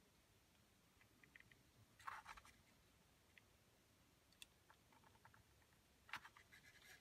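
Near silence, with a few faint clicks from a hot glue gun as its trigger is squeezed to pump melted wax onto a mat.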